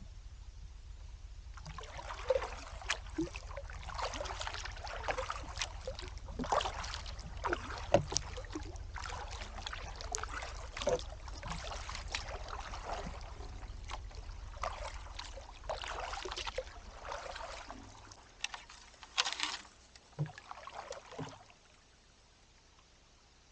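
Canoe paddle strokes on calm water: the blade dipping and pulling through the water in a steady rhythm of about one stroke a second, with splashes, drips and occasional sharp knocks. The paddling stops near the end.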